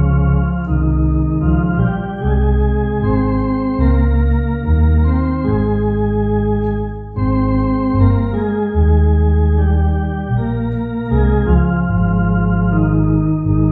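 Two-manual electronic organ playing a hymn: sustained full chords over a deep bass, changing about once a second, with a gentle vibrato on the upper notes.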